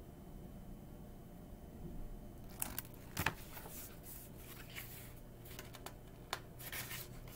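Pages of a hardcover picture book being turned and handled: a run of crisp paper rustles and clicks that starts about two and a half seconds in, after quiet room tone.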